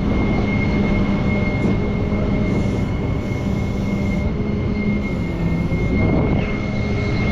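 Steady rumble of running vehicles with a constant high-pitched buzz over it.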